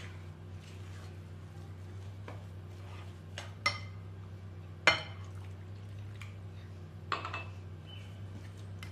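A metal spoon knocks and scrapes against a glass mixing bowl as crumbly semolina dough is mixed. There are a few sharp clinks, the loudest about five seconds in, over a steady low hum.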